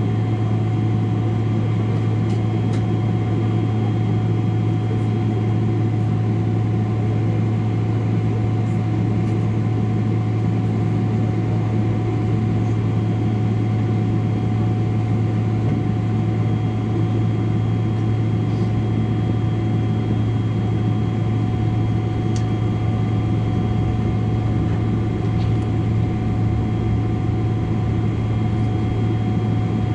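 Steady cabin drone inside a Boeing 777-300 airliner on the ground before takeoff: a low hum with several high steady whining tones above it, unchanging throughout.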